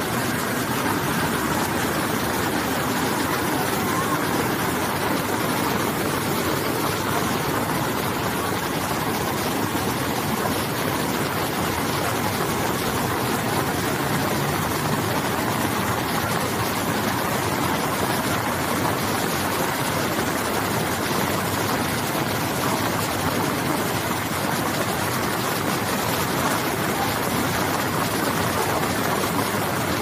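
Steady rushing noise of floodwater and heavy rain, with a LiuGong wheel loader's diesel engine running as it drives through the flood.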